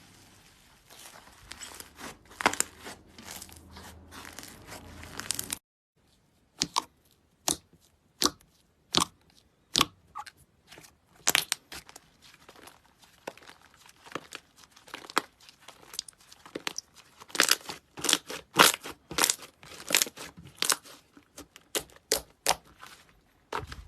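Slime being handled. A dense crinkling crackle runs for the first few seconds and stops at a sudden cut, followed by a string of sharp, irregular pops and clicks, several a second.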